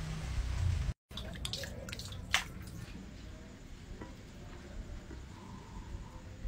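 A low rumble for about the first second, then faint wet squishing and a few light clicks as a prickly pear cactus pad is scooped through a plate of sambal.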